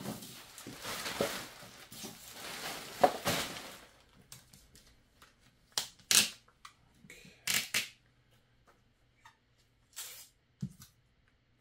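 Plastic bag rustling and crinkling as packing material is gathered into it, continuous for the first few seconds, then a handful of separate crinkles and light knocks.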